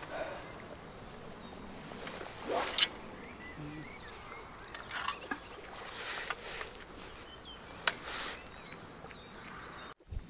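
Faint outdoor background by the water, with a few scattered short chirps, likely small birds, and several soft taps from tackle being handled.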